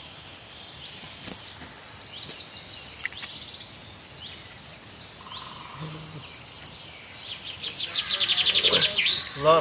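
Birds chirping and calling, short high notes throughout, with a fast, loud trill about eight seconds in.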